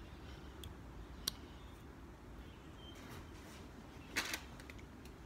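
Low steady background hum with a single sharp click a little over a second in and a brief scuff or rustle about four seconds in.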